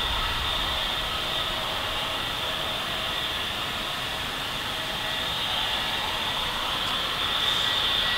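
Turbofan jet engines of taxiing airliners running at idle thrust: a steady hissing whine, a little louder near the end as a KLM Embraer E175 taxis close by.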